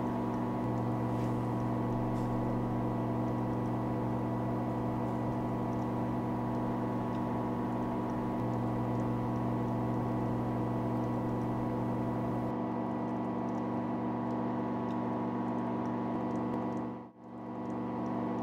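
Steady electric hum of a flow tank's water pump running, a constant drone with many evenly spaced overtones; it dips out briefly near the end.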